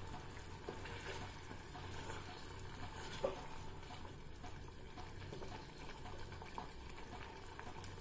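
Wooden spatula gently stirring prawn curry in a clay pot as it cooks on the flame, faint, with a small click about three seconds in.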